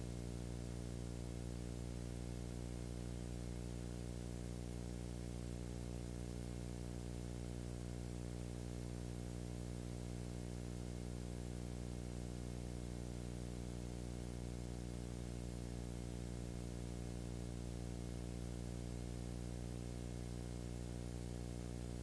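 Steady electrical hum with many evenly spaced overtones over a faint hiss, unchanging throughout: the noise floor of a silent home movie's film-to-video transfer, with no sound from the scene itself.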